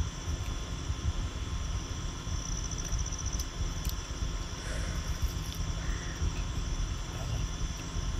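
Outdoor ambience of insects trilling in a high, fine pulsing band that swells and fades, over a steady low rumble, with a few faint chirps near the middle.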